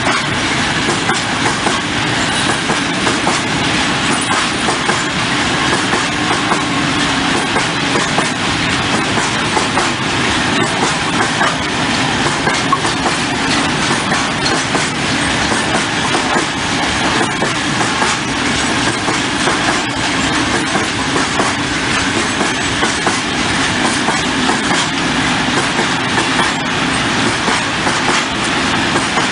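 A train rolling past at steady speed, its wagons' wheels clattering over the rails without a break.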